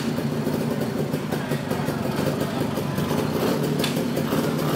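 Classic motorcycle engine idling steadily with a rapid, even firing beat.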